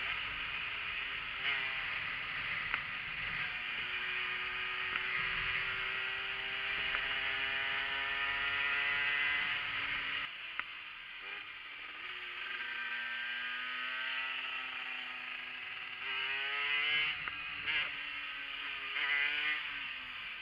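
Yamaha TZR50 two-stroke moped engine running on the move: the pitch climbs steadily under acceleration for the first half with wind rushing over the microphone, then drops as the wind fades, and rises and falls several times with quick throttle blips near the end.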